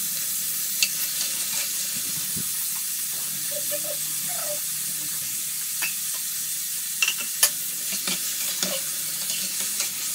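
Paneer cubes frying in hot oil in a pan on a gas stove: a steady sizzle with a few scattered light clicks.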